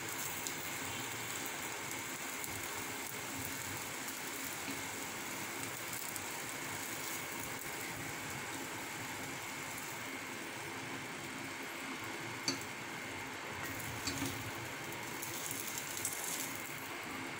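Hot oil sizzling steadily in a paniyaram pan as the fried egg balls are lifted out of its cups, with a few faint clicks in the second half.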